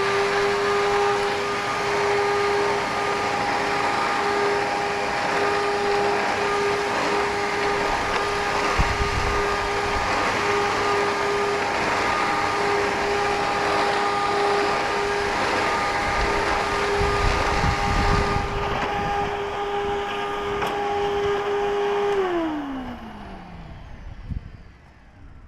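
Eureka Whirlwind Litespeed upright vacuum running, fitted with a new belt and brush roll: a steady motor whine over a rush of air. The sound changes about 18 seconds in. About 22 seconds in it is switched off, and the whine falls as the motor winds down.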